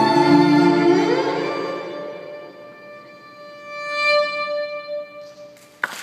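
Violin music: held, ringing notes with a rising slide about a second in that then die away, followed by a softer sustained note. A short sudden noise comes right at the end.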